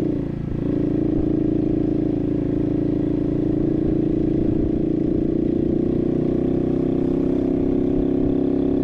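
Barton Volcano 50cc moped engine running steadily under way, with a brief drop in pitch about half a second in before it settles back to an even note.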